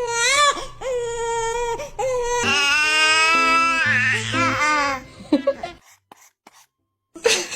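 Baby crying in repeated short wails that bend upward in pitch. About two and a half seconds in, a louder, held stretch with stepped, tune-like tones underneath begins, and it stops about five seconds in. Near the end there is a second of complete silence.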